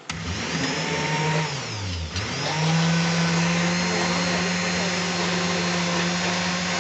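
National electric blender motor switched on, blending a jug of milkshake. About a second and a half in its hum drops in pitch as it winds down, then it is switched on again just after two seconds and runs steadily.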